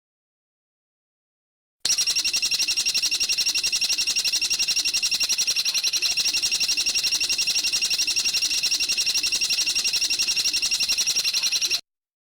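A bird's rapid, even rattling call: a fast run of identical high notes that starts about two seconds in, holds steady for about ten seconds, then cuts off suddenly, as in a looped masteran recording.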